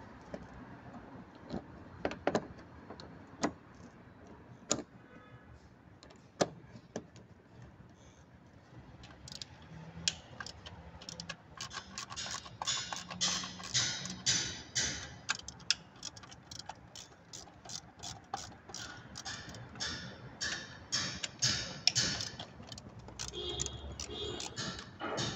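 Socket ratchet wrench clicking in quick repeated strokes as the intake manifold bolts are loosened, starting about ten seconds in. Before that come a few scattered metallic clinks and taps of tools on the engine.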